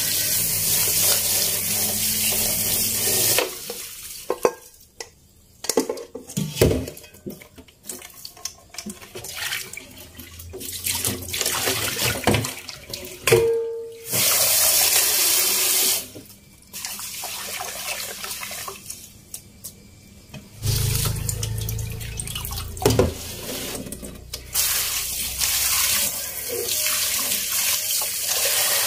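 Kitchen tap running into a stainless steel bowl in a stainless sink as black sesame seeds are rinsed. The water stops and starts several times. In the quieter gaps, metal bowls and a mesh strainer knock and clink as the rinse water is poured off.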